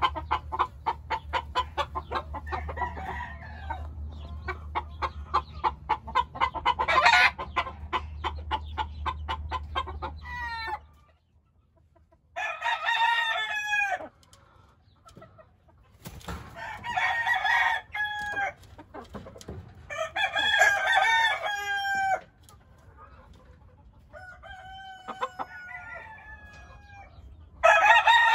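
Chickens clucking fast and evenly, about five clucks a second, over a low rumble for the first ten seconds or so. Then gamecock roosters crow one after another, about five crows a few seconds apart, one of them fainter and farther off.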